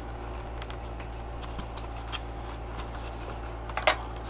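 Faint scattered clicks and rustles of packaging being handled, with a sharper, louder click about four seconds in, over a steady low hum.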